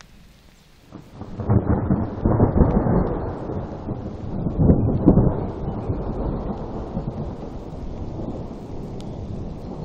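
Thunder: a rumble breaks about a second in, rolls with loud peaks, then slowly fades.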